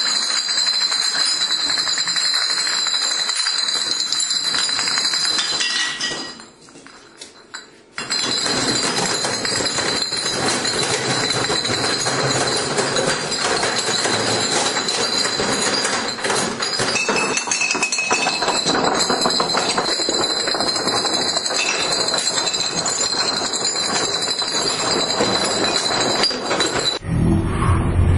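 Glass beer bottles toppling one after another like dominoes, a long run of rapid clinking and clattering of glass on glass. It drops away briefly about six seconds in, then picks up again.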